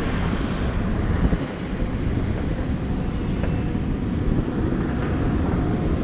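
Diesel engines of excavators and dump trucks working together, a steady low rumble, with wind buffeting the microphone.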